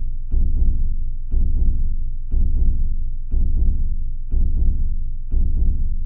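Slow heartbeat: a steady lub-dub, two low thumps close together, repeating about once a second, six beats in all.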